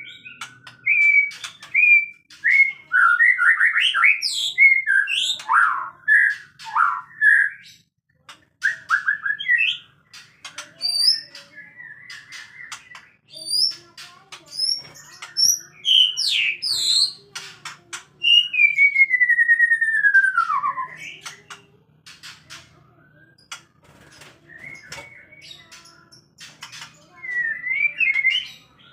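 White-rumped shamas calling: a run of varied whistled phrases and quick glides mixed with sharp clicking notes, with one long falling whistle about two-thirds of the way through.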